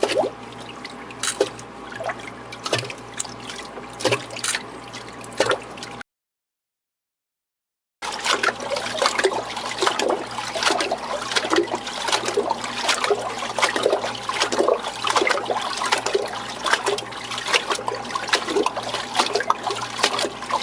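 Water dripping: a few separate drops over a steady hum for about six seconds. It cuts off into a brief silence, then comes back as a dense, continuous trickle of splashing drops.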